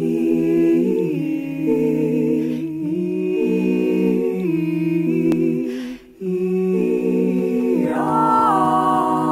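Several unaccompanied voices hold chords together, moving from chord to chord in steps, with a brief break about six seconds in. Higher voices join about eight seconds in.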